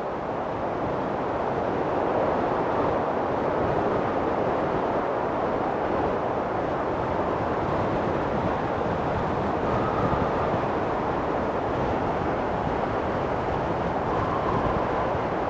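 Steady wind blowing across an open snowfield and buffeting the microphone, a continuous rushing noise with no let-up.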